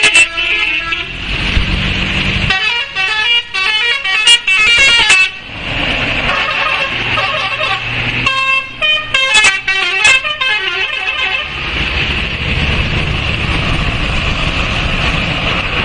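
Bus 'telolet' horn: a multi-tone musical horn sounding quick tunes of shifting notes in several bursts, at the start, from about three to five seconds in, and from about eight to ten seconds in. A low engine rumble runs between the bursts.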